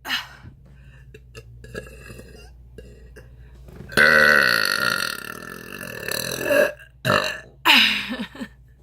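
A woman's deliberate air burps, forced up from swallowed air without any drink: one long burp lasting nearly three seconds starts about four seconds in, with shorter burps before and after it.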